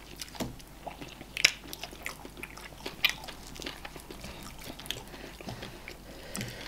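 Close-miked wet eating sounds of eba and okra soup eaten by hand: chewing and lip smacks, with a scatter of small sticky clicks and two sharper smacks about one and a half and three seconds in.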